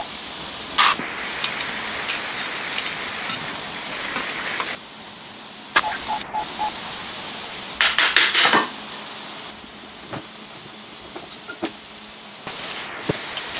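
Metal clinks and clatter of tools and parts while a classic Mini engine is dismantled, over a steady hiss. The clinks come singly at first, then in a rattling cluster about eight seconds in. The hiss drops and comes back suddenly a few times.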